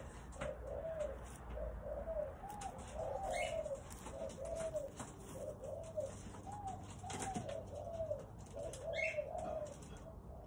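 Doves cooing: a long run of short, soft notes that rise and fall, repeating almost without a break. A few brief higher chirps from another small bird come about a third of the way in and again near the end.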